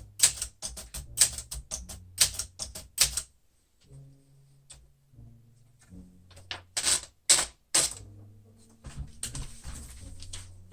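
1968 Olympia SM9 manual typewriter typing: a quick run of sharp key strikes, a pause of about three seconds, then a few more loud strikes, with quiet background music underneath.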